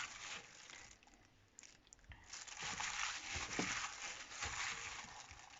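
Hands mixing raw chicken pieces into a spice and ginger-garlic paste marinade: soft, wet squishing and crackling, with a lull about one to two seconds in.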